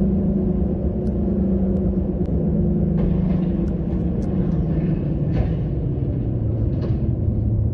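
Car interior road and engine noise at highway speed, a steady low drone whose hum drops in pitch about five seconds in, with a few faint ticks.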